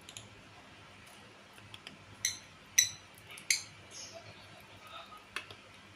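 Lovebird giving three short, sharp, high-pitched chirps about a second apart, with a few faint clicks between them.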